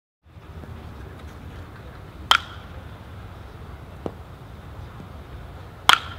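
Baseball bat striking a pitched ball: two sharp cracks about three and a half seconds apart, with a fainter knock between them, over steady outdoor background noise.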